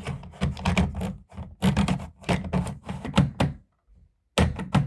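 Quick runs of small plastic clicks and taps from a smoke alarm's casing being handled. They pause about three and a half seconds in, and a few more come near the end.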